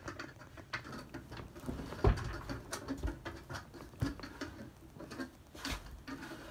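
Irregular scraping, creaking and knocking as a cold new plastic runner strip is forced along a dog sled's quick-change runner track, with a louder thump about two seconds in.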